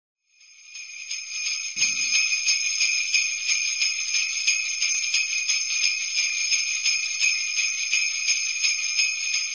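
Sleigh bells jingling in a steady shaken rhythm, fading in over the first couple of seconds.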